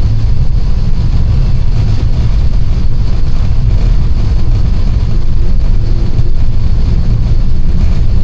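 Steady low rumble of an Airbus airliner in flight, heard from inside the aircraft: engine and airflow noise, with a faint steady whine above it.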